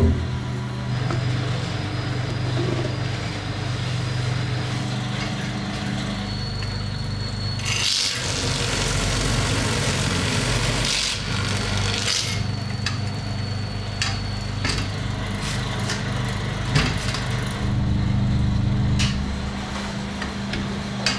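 Steady machine hum in a honey house while honey frames are handled and loaded into a radial extractor. A loud rushing hiss lasts for about four seconds in the middle, and a series of sharp wooden and metal knocks from the frames going into the extractor cage follows.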